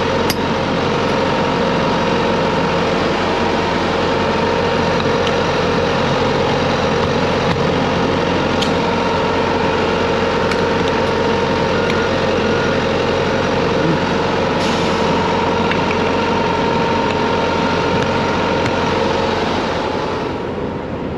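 Refrigeration unit on the front of a reefer trailer running steadily at close range, a constant mechanical hum. It gets a little quieter near the end.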